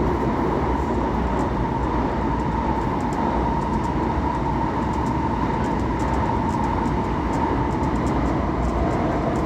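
CAF-built Série 500 Fase II metro train running at speed between stations, a steady rail rumble with a whine from the drive holding an even pitch.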